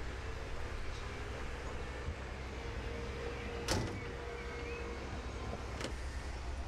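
Two sharp knocks on an excavator's upper bodywork as a man climbs across it, the louder one about halfway through, over a steady low machinery rumble.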